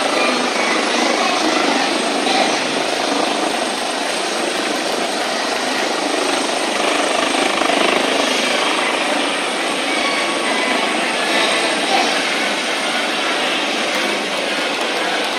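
Airbus H145M military helicopter hovering low and manoeuvring, its rotor and twin turbines giving a loud, steady noise.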